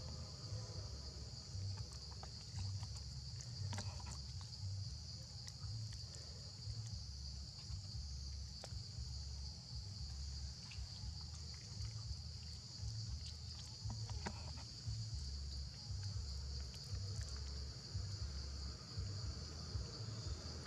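Insects chirring in one steady, high-pitched drone, over a fluctuating low rumble of wind on the microphone, with a few faint ticks.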